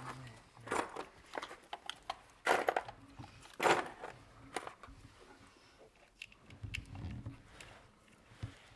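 Irregular clicks and scraping of plastic ignition coil connectors and wiring being handled and pushed onto the coil packs of a BMW M50 engine, with a few sharper clicks about two and a half and three and a half seconds in.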